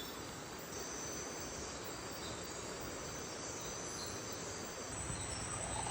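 Insects trilling steadily: thin high-pitched tones over a constant hiss. A low rumble comes in near the end.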